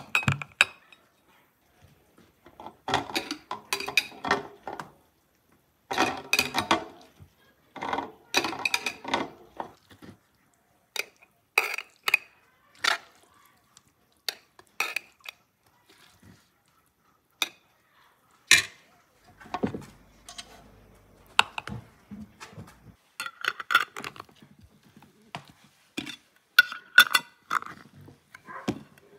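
Glass jars clinking as they are handled and set down, and a metal spoon scraping and knocking in a steel pot as cut green beans are spooned into the jars, in scattered bursts of clatter with quiet gaps between. Near the end, screw-on lids being turned onto the filled jars.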